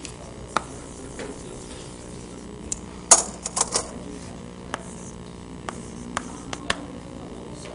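Chalk tapping and scraping on a blackboard as lines are drawn: scattered sharp clicks, with the loudest a quick cluster of several about three seconds in.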